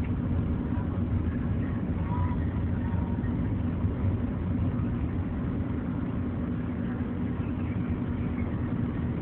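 A car's steady low running rumble, heard from inside the cabin.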